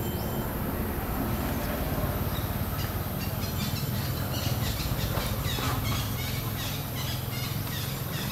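Outdoor ambience: a steady low rumble, with a run of quick, high chirps starting about three seconds in.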